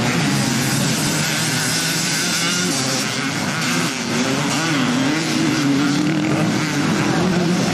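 Several motocross dirt bikes racing together, their engines revving up and down as the pack rides through the corner.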